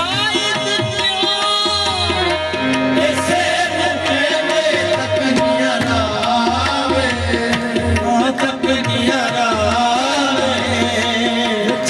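Live qawwali music: harmoniums holding the melody over a steady tabla beat, with a lead voice sliding through ornamented runs.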